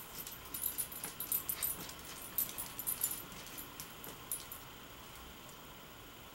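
A small dog's collar tags jingling in a quick, uneven run of light clinks that stops about four and a half seconds in.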